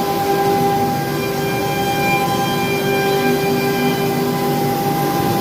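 CNC machine running with a steady, unchanging whine over a continuous mechanical noise.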